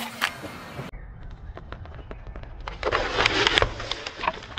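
Car tyre rolling over and crushing hard-shelled candies on asphalt: scattered cracks, then a dense run of crackling and crunching about three seconds in. Just before that, one sharp crack ends the crushing of another object.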